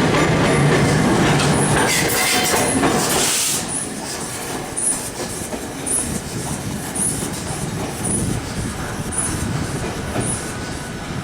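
A train running on the rails, with wheel noise and squeal, loud for the first three and a half seconds and then quieter.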